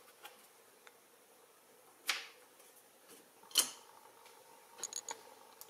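A few light clicks and taps as a small voltage-converter module is handled and its header pins are set onto a printed circuit board: one about two seconds in, another a second and a half later, and a quick run of small ticks near the end.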